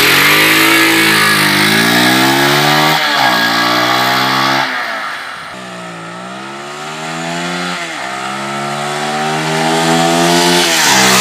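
Bajaj Pulsar 180F's single-cylinder engine accelerating hard through the gears: the pitch climbs and drops back at each shift. The engine fades as the bike rides away, then grows louder as it comes back. Its airbox intake bend has been cut out, leaving the filter in place, to make the intake louder and sharpen pickup.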